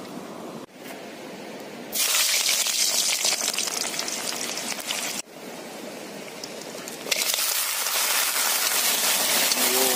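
Hot oil in a metal wok sizzling loudly as river snails fry in it. The sizzle starts about two seconds in, breaks off briefly around five seconds and comes back near seven seconds.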